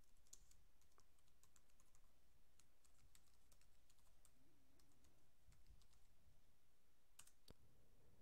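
Faint computer keyboard typing: a scatter of soft key clicks, with two sharper keystrokes near the end.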